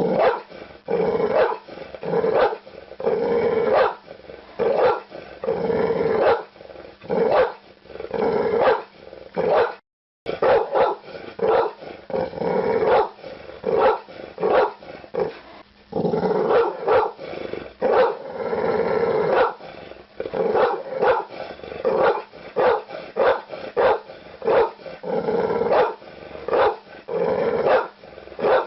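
Pit bull barking over and over, many barks in quick succession with a few longer ones. There is a split-second break about ten seconds in.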